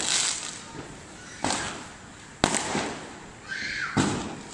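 Fireworks exploding: three sharp bangs, about one and a half seconds in, two and a half seconds in and four seconds in, each trailing off in a crackling hiss.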